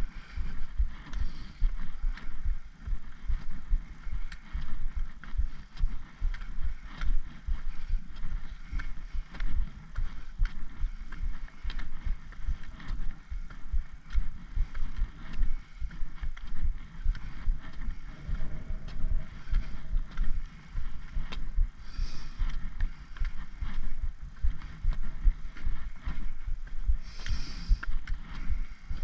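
Wind rumbling and buffeting on the microphone, with footsteps and repeated taps of a trekking pole's tip on a tarmac road.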